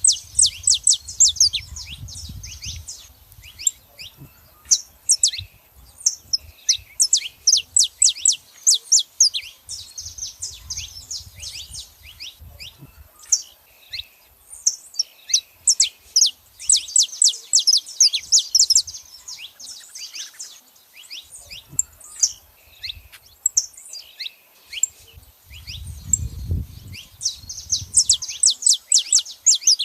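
Saffron finches chirping in quick runs of sharp, high notes, several birds calling in turns with short pauses between runs. A low rumble comes and goes under the calls.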